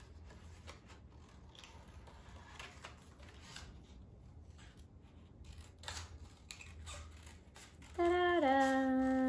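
Scissors snipping through construction paper around a traced hand shape: faint, irregular snips. About eight seconds in, a woman hums a steady held note that steps down slightly in pitch, much louder than the snipping.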